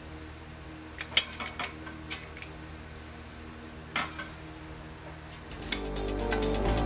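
Metal clinks and knocks as a steel axle shaft and its universal-joint yoke are shifted against the hydraulic press tooling: a quick run of sharp clinks between about one and two and a half seconds in, and another near four seconds. Background music comes in near the end.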